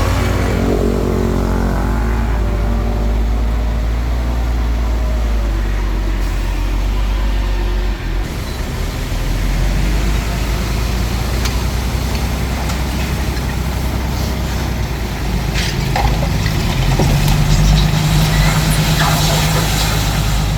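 Small bulldozer's diesel engine running steadily while it works, with a few sharp clanks near the end. The engine note holds higher for a few seconds in the last part.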